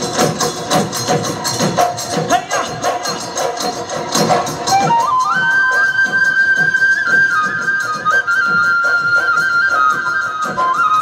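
Live Bihu music: a dhol drum beats a quick, steady rhythm. From about five seconds in, a high wind pipe plays long held notes, stepping between a few pitches.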